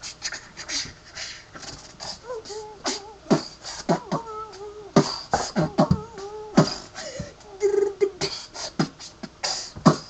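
A person beatboxing: irregular mouth-made percussive hits and hissing sounds, mixed with a few short hummed or sung notes.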